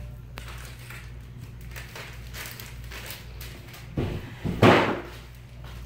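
Light handling noises of supplies on a table over a steady low hum, then a louder rustling, crunching clatter about four seconds in.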